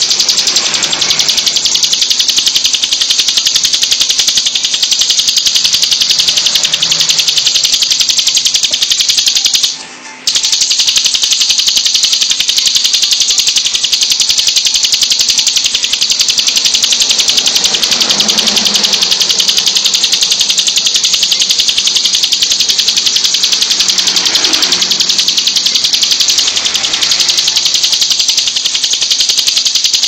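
Caged ciblek (a prinia) singing a continuous, very fast, high rattling trill, broken once by a short pause about ten seconds in.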